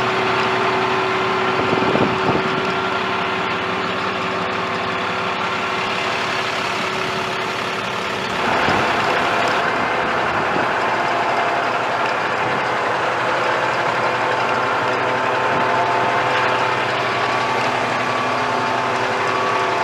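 Paccar PX-6 inline-six diesel of a Peterbilt rollback truck running steadily at idle, with a steady whine over the engine note. It gets a little louder about eight and a half seconds in.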